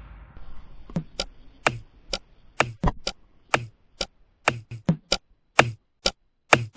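A series of sharp knocks, each with a dull low thump, at an uneven pace of about two to three a second, starting about a second in as electronic music fades out.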